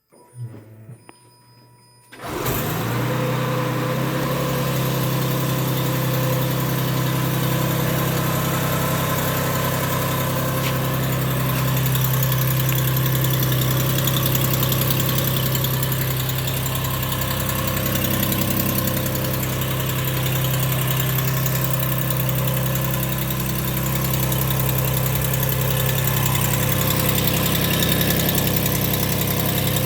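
Lexus RX400h's 3.3-litre V6 petrol engine starting about two seconds in, then running steadily. The owner hears a ticking from under the engine at this stage that dies away after about a minute of running.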